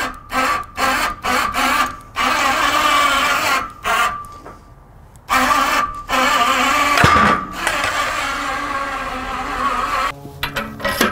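Heavy wooden cants scraping and knocking against a steel sawmill bed as they are slid into place, in short choppy bursts. Music comes in near the end.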